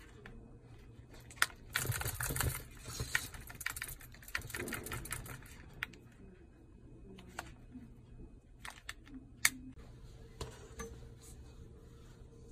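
Handling noise of a leather phone case and a plastic card: rubbing and scraping as the card is worked in and out of the leather pocket, with a few sharp clicks, two of them louder than the rest.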